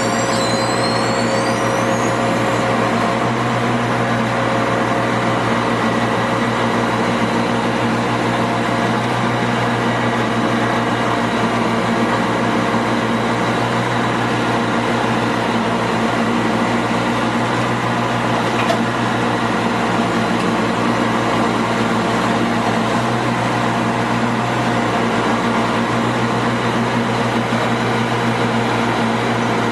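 Tamrock Pantera 1500 blasthole drill rig running steadily: a loud, even engine and machinery hum with a few high squeals in the first couple of seconds.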